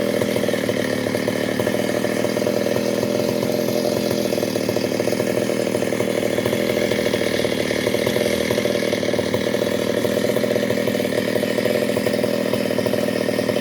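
Two-stroke chainsaw cutting through a teak log, its engine held at a steady speed.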